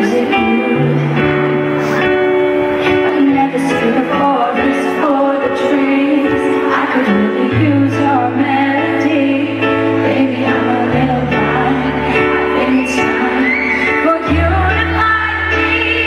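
A female pop singer singing a slow ballad live into a microphone, over held keyboard chords and a slow-moving bass line.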